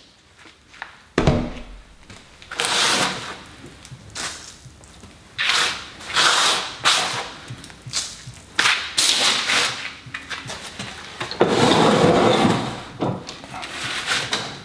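Knocks, a thud and short scraping sounds of objects being handled and shifted on a wooden workbench, irregular and unrhythmic.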